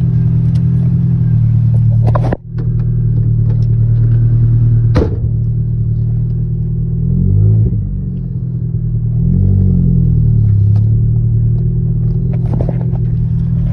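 Nissan D21 pickup's engine running, heard from inside the cab while being driven, its pitch rising and falling twice past the middle as it is revved up and backed off. Two sharp knocks, the first about two seconds in, the second about five seconds in.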